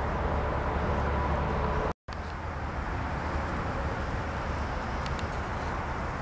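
Steady outdoor background rumble and hiss picked up by the camera microphone, with a brief drop to silence about two seconds in where the footage cuts.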